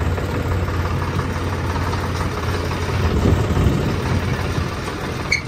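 Tractor diesel engine running steadily with a deep hum as the tractor drives along, heard from the driver's seat. A single short click sounds near the end.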